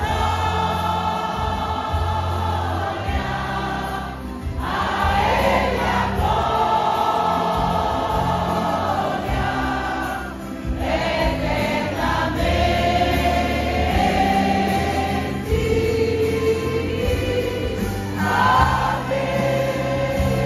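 Large women's choir singing a gospel hymn in Portuguese, in long held phrases over a steady low accompaniment.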